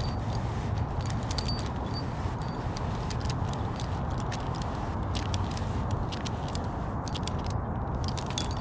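Small metal clicks and jingles of a tree climber's rope and hardware as he handles his climbing line, scattered irregularly over a steady low rumble.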